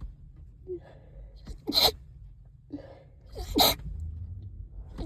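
A person with a stuffed-up, congested nose sneezing twice, about two seconds apart, each sneeze preceded by a catching in-breath.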